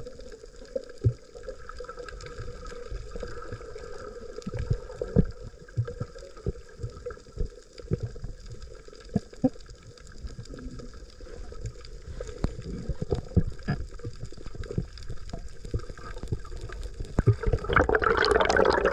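Water gurgling and sloshing close to the microphone, with many short, dull knocks scattered through it and a faint steady whine. From about three quarters of the way in, the sloshing grows much louder and busier, like splashing at the surface.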